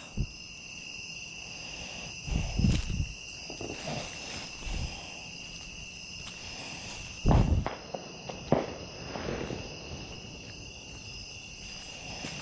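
Crickets chirring steadily at night. Several dull, low thumps break through, the loudest about seven seconds in.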